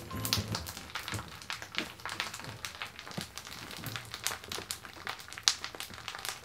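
Rice Krispies cereal crackling and popping in freshly poured milk: a continuous scatter of small, irregular snaps and clicks.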